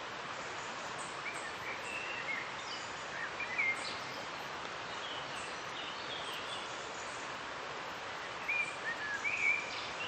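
Steady rushing of a river with birds chirping over it. The calls are short and scattered, with a busier flurry about three to four seconds in and another near the end.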